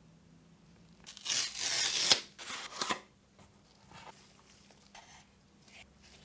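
The cardboard packaging of Nothing Ear (a) earbuds being torn open: one loud tear lasting about a second, starting about a second in, then a few shorter rips. After that come faint rustling and light handling clicks.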